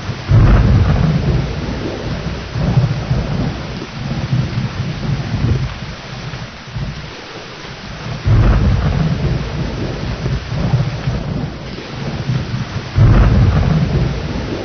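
Steady rain with thunder rumbling. Three loud rolls break in suddenly, one right at the start, one about eight seconds in and one near the end, and each dies away over a few seconds.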